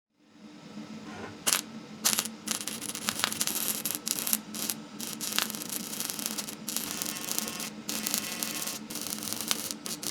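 Electro-spark cold welding machine at work: a steady electrical hum under a continuous rapid crackle of sparks, with a few sharper snaps.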